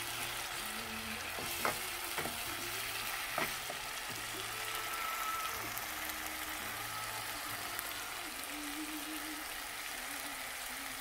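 Thick pepper-and-tomato sauce frying in oil in a pan with a steady sizzle: its liquid has cooked off. A wooden spoon stirs it, with a few sharp knocks against the pan in the first few seconds.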